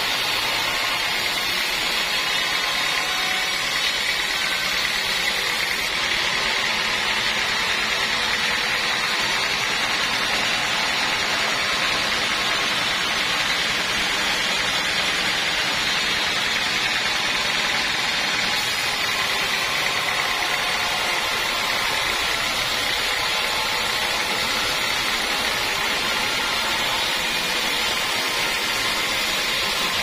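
Band sawmill running steadily, its band blade cutting lengthwise through a teak log.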